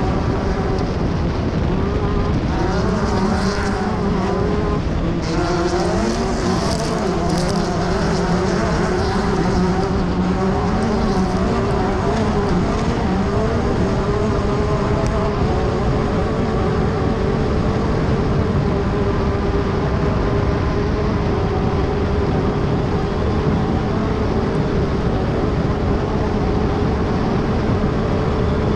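Class 10 off-road race car's engine running hard at racing speed. Its pitch rises and falls with throttle and gear changes through the first third, with bursts of hiss, then holds steady at high revs.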